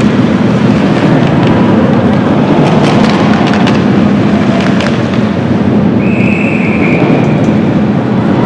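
Loud, dense ice-rink din, crowd noise with scattered sharp knocks and clacks, and a high whistle blast lasting about a second near the end.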